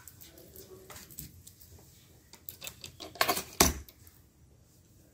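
Small tools and phone parts handled on a repair bench: scattered light clicks and clatters, with a cluster of sharper clicks about three seconds in.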